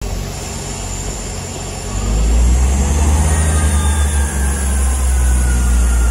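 Class 159 diesel multiple unit's underfloor Cummins diesel engines running, then opening up about two seconds in to a louder, deep throb as the train starts to pull away, with a faint rising whine from the drive.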